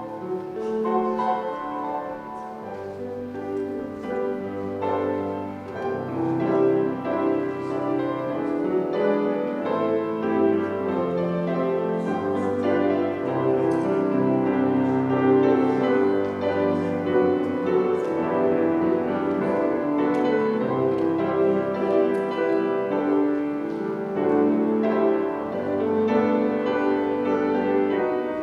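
Instrumental piano music played as the offertory, with many notes held and overlapping.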